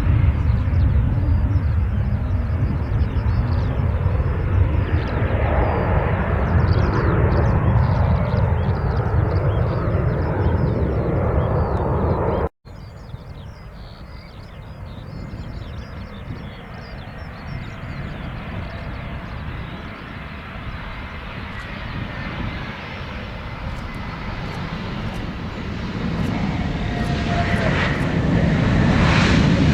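Aircraft engines running with a loud, low rumble that stops dead about twelve seconds in. Fainter engine noise follows and builds, with a whine and a louder rumble near the end.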